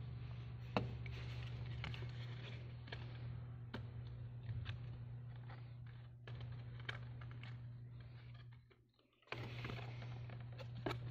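Paper handled and creased by hand as it is folded into a box: rustling with scattered sharp clicks and crackles, one louder click just under a second in. A steady low hum runs underneath and drops out briefly about nine seconds in.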